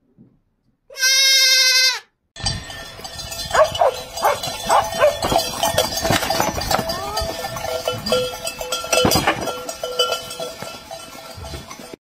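A young goat kid bleats once, a quavering, high-pitched call lasting about a second. It is followed by a long, busy stretch of knocks and clatter with other calls mixed in.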